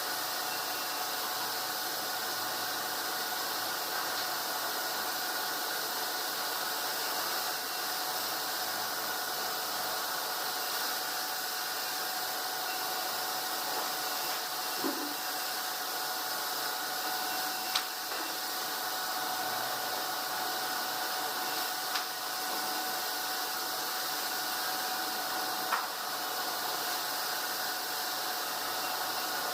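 Steady drone of sawmill machinery running, an even rushing noise with a faint steady hum in it, broken by a few sharp clicks.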